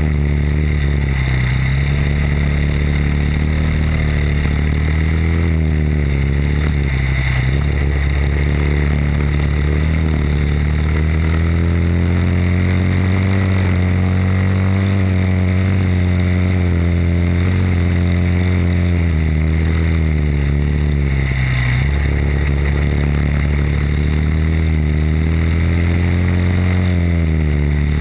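Briggs & Stratton World Formula four-stroke single-cylinder kart engine heard from on board at racing speed. Its revs climb steadily and drop briefly several times.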